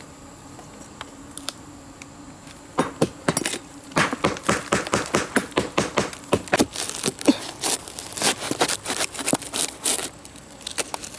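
A sickle's curved blade hacking and prying into a rotting log, the soft wood cracking and crumbling in quick, irregular snaps that start about three seconds in.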